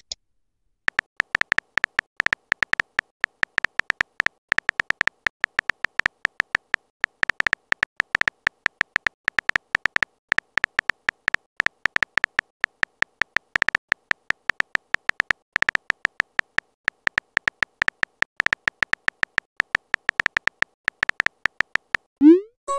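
Text-message typing sound effect: a rapid, irregular run of short high beeps, one per character typed. Near the end a louder rising pop sounds as the message is sent.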